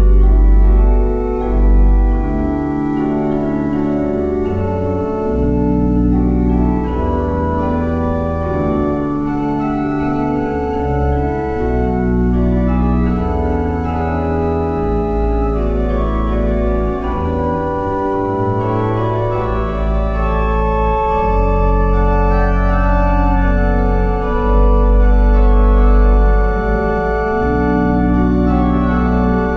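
Organ playing a prelude: slow sustained chords over deep held bass notes, changing every second or two.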